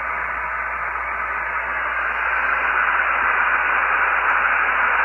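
Steady hiss of 80-metre band noise from a Realistic DX-200 shortwave receiver in single-sideband mode, played through a Radio Shack DSP-40 noise-reduction processor. The hiss is dull, with no treble, and grows a little louder about two seconds in, during a gap in the received voice transmission.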